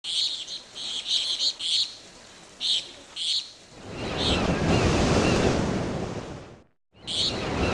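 Birds chirping in short bursts, then about four seconds in a rush of waves washing in and fading. It cuts off abruptly to a moment of silence near the end, then the wash and chirps resume.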